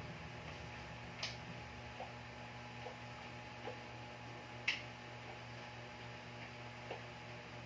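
A few light clicks and taps as a broom is worked over a tiled floor, the sharpest about a second in and again near the middle, over a steady low hum.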